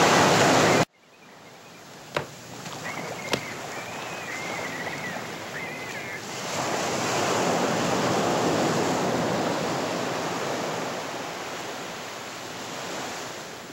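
Ocean surf: a rush of breaking waves that cuts off abruptly about a second in, then swells slowly to a peak midway and fades again. Two short clicks come early on.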